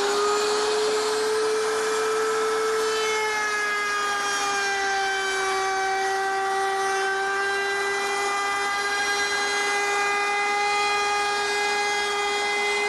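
Table-mounted router running at full speed with a steady high whine. Its pitch sags slightly about three seconds in as the 3/8-inch roundover bit takes the oak board's edge.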